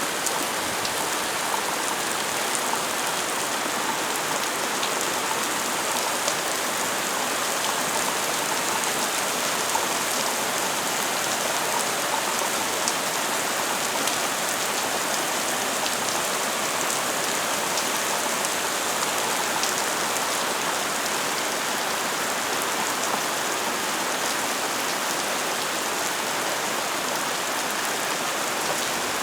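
Heavy rain from a thundery shower falling steadily: a dense, even hiss with scattered drop ticks.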